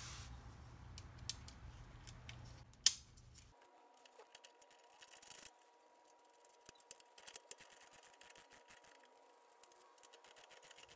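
Hand ratchet and 17 mm socket clicking in short, irregular runs while loosening the nuts that hold the ball joint to the lower control arm. One sharper click about three seconds in is the loudest sound.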